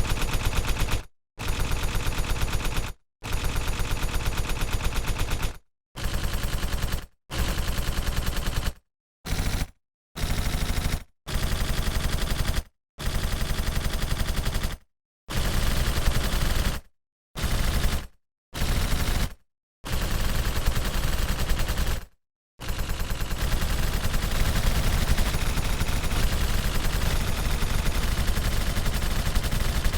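Automatic gunfire sound effects, played as a string of short machine-gun bursts of rapid shots, each a second or two long, with brief dead-silent gaps between them. A longer continuous burst starts past the two-thirds point and keeps going.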